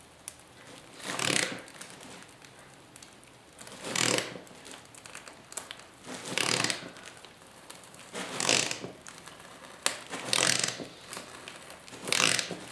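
Ratchet wrench working a rusted bolt loose from a motorcycle seat pan: six short ratcheting strokes about two seconds apart, each a quick burst of clicking.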